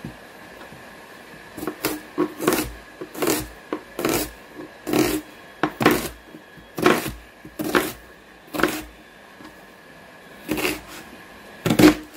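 Kitchen knife slicing through a peeled red onion and knocking onto a plastic chopping board, a cut every second or so starting about a second and a half in, with a short pause near the end before two more cuts.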